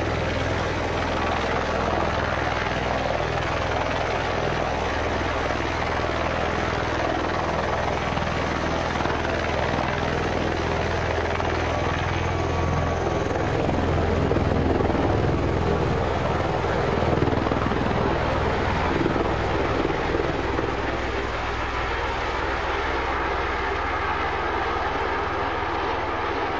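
Bell-Boeing V-22 Osprey tiltrotor taking off in helicopter mode: its twin turboshaft engines and proprotors run at full power, a loud rushing noise over a steady low drone. It grows louder about halfway through as the aircraft lifts off, then eases a little as it climbs away.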